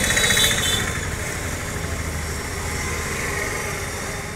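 A motor vehicle's engine running, loudest about half a second in and then slowly fading.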